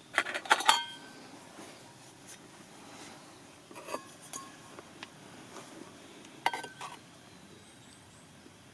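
Tableware clinking: a quick cluster of light clinks with a short ring at the start, then a few more clinks about four seconds in and again about six and a half seconds in.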